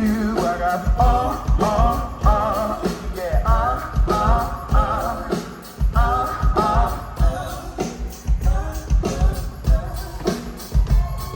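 Soul band playing live: a singer's wavering, drawn-out vocal lines over a steady drum beat and bass.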